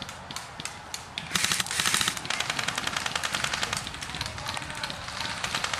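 Airsoft guns firing in rapid strings of shots. The loudest string comes about a second and a half in, with more quick shots continuing after it.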